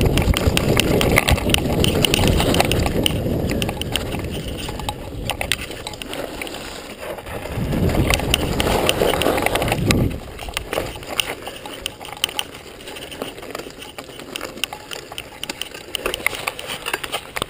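2011 Cannondale mountain bike riding down a dirt trail: wind rushing over the microphone and tyres on dirt, with frequent rattles and clicks from the bike over bumps. About ten seconds in the wind noise drops suddenly, leaving tyre noise on gravel and the rattling.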